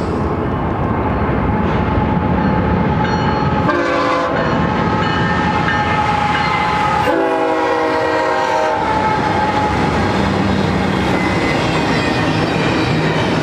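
BNSF diesel locomotives leading a double-stack container train sound a multi-note horn: a short blast about 4 s in, then a longer one of about a second and a half, over the heavy rumble of the engines and wheels. As the stacked container cars roll past, the wheels clatter over the rail joints.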